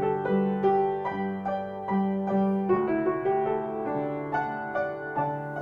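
Piano music: a melody of about three notes a second over held lower notes.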